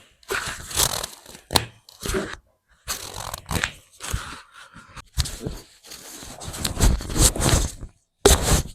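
Handling noise from a chiropractic neck adjustment: a string of irregular scraping and rustling bursts with short gaps between them, and one sharp click about one and a half seconds in.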